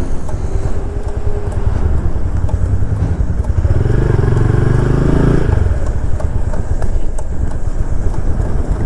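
Motorcycle riding along, engine and road noise steady, with scattered light clicks from something caught on the bike: a loose piece of black electrical tape. The engine drone swells for a couple of seconds about four seconds in.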